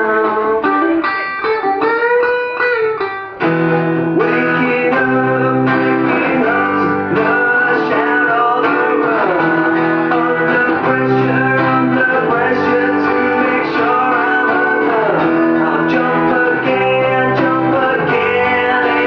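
A band playing live, led by guitar. A fuller low end joins about three and a half seconds in.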